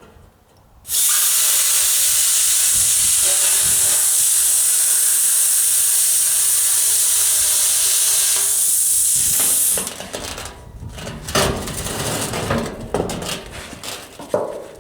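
A loud steady hiss starts abruptly about a second in and stops about nine seconds later. A few seconds of irregular knocks and scraping follow.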